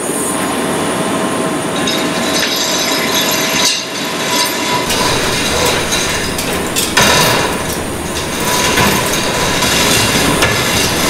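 Hand chain of a manual chain hoist rattling and clinking as it is pulled hand over hand to lift a wire basket of propeller blades out of an etch tank, with occasional metal clanks, over a steady rush of ventilation noise.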